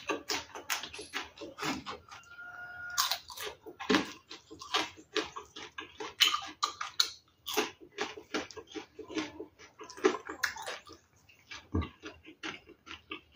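A person chewing and lip-smacking close to the microphone while eating rice, fried fish and sambal by hand: a dense, irregular run of mouth smacks and clicks.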